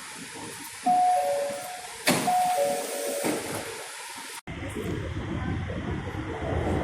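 A metro two-note descending chime, a higher note then a lower one, sounds twice about a second apart over platform noise. About two-thirds of the way in the sound cuts off abruptly and comes back as a steady low rumble.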